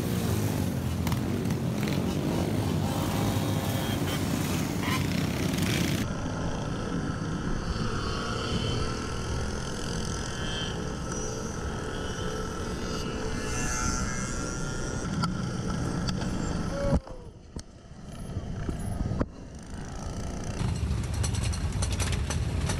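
Mini bike engines running during a ride, in several cut-together clips: the sound changes abruptly about six seconds in and drops away briefly a few seconds before the end.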